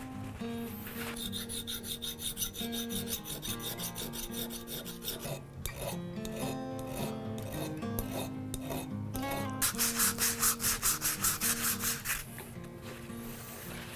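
Quick, rhythmic hand-shaping strokes of an abrasive tool on a hardwood screwdriver handle, about four a second, loudest in a run about ten seconds in. Background music plays throughout.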